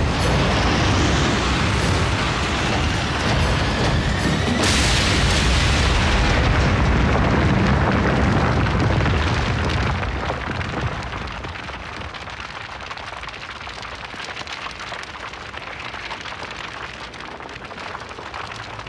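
Sound effect of a large energon explosion: a loud blast, a second blast about four and a half seconds in, and a long rumble. About ten seconds in it dies down to the quieter crackle of burning flames.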